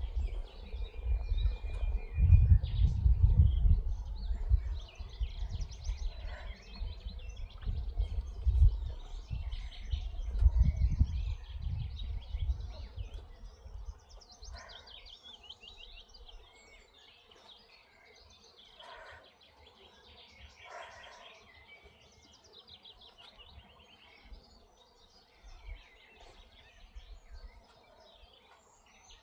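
Birds chirping and singing, with gusts of wind buffeting the microphone as a low rumble during roughly the first half, then dying down.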